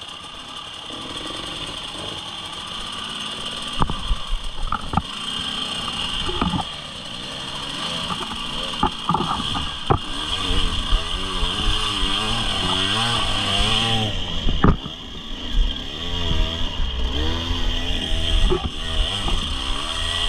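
Motorcycle engine running, its pitch rising and falling over and over as the throttle is worked, with several sharp knocks in the first half.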